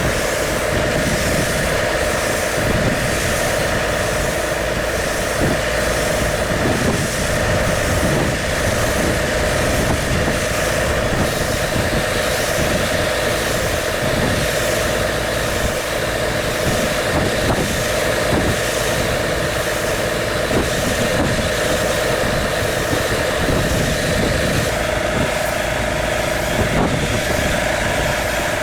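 An engine running steadily at idle, with a constant hum and irregular low rattling.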